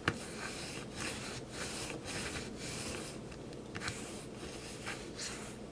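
Uneven rubbing and scraping strokes, roughly two a second, as the adhesive backing and leftover sticker residue are worked off the back of a small tank heating pad. A sharp click comes right at the start.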